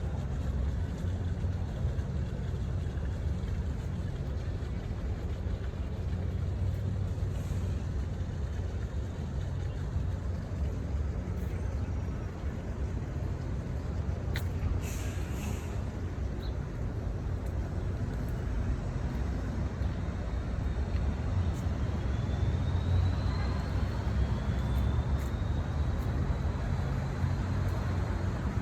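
Steady low rumble of city road traffic, with a short hiss about halfway through and a faint rising whistle near the end.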